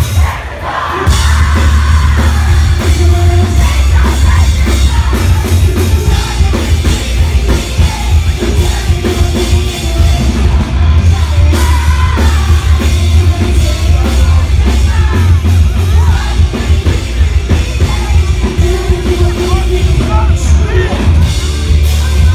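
Rock band playing live, with singing over electric guitar and drum kit. It is loud with heavy bass, and the full band comes back in about a second in after a brief dip.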